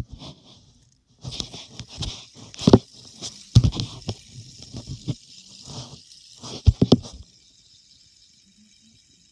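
Close handling noise: irregular knocks, scrapes and rubbing as a fidget spinner is fumbled in the hand. About seven seconds in these stop and the spinner's bearing gives a faint, steady high whir as it spins freely.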